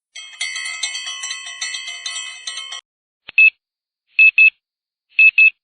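Bright electronic chime tones struck in a quick, regular pattern for almost three seconds, then short high beeps: one, then two pairs.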